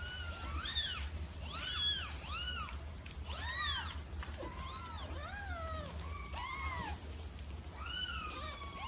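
Cat meowing over and over: a quick run of short, high meows that rise and fall, about a dozen of them, with a longer falling meow near the end.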